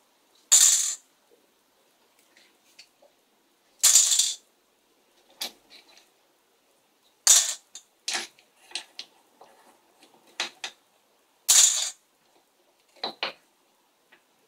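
Stones dropped one at a time into a stainless steel colander, each landing with a bright metallic clatter. There are four loud clatters about three to four seconds apart, with lighter clinks of stones knocking in the colander between them.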